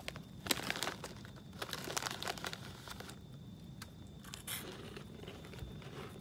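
Snack bag crinkling as it is handled, several times over the first two and a half seconds, then quieter with one more crinkle about two thirds of the way through.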